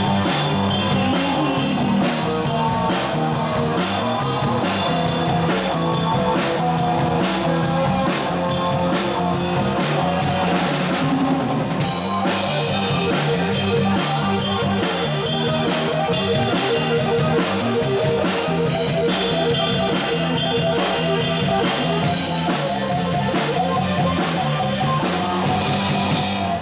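A live rock band playing an instrumental passage: a drum kit keeping a steady, busy beat under guitar and bass.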